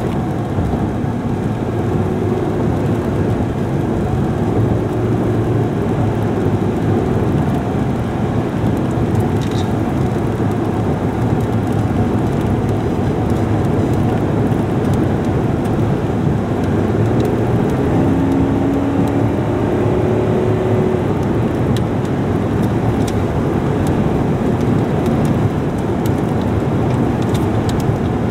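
Steady road and engine noise of a car driving at speed, heard from inside the cabin, with faint humming tones that come and go.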